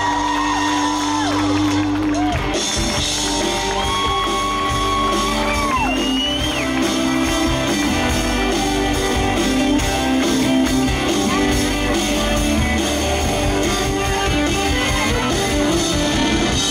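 Live country band of drums, electric and acoustic guitars and fiddle playing loudly without vocals, with shouts from the audience.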